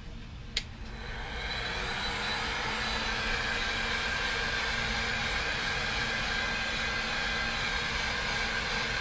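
Handheld heat gun blowing steadily on a freshly airbrushed lure to dry the paint between coats. It clicks about half a second in, then its fan spins up over about a second and holds a steady rush of air with a faint whine.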